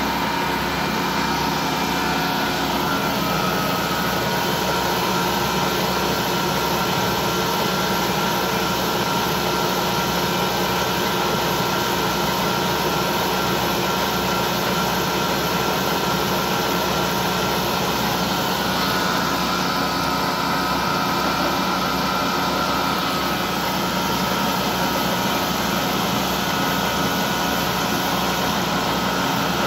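Vertical lathe running steadily while its tool bit cuts a groove into a large rotating metal ring: a continuous machine drone with several steady whining tones.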